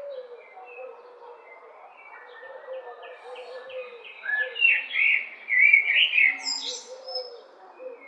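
Common blackbird singing: quieter fluted phrases at first, then louder warbled phrases from about four seconds in, with a high, squeaky twitter near the end.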